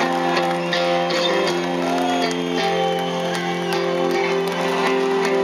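Rock band playing live through a concert PA, held chords with guitar over a steady full mix, with crowd voices faintly underneath.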